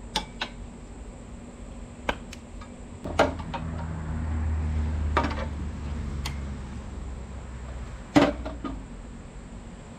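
Sharp metal clicks and clinks from parts being worked by hand on a Kubota BX23S compact tractor, with the loudest knocks about three and eight seconds in, over a steady low hum. A low rumble swells about three seconds in and fades by about eight seconds.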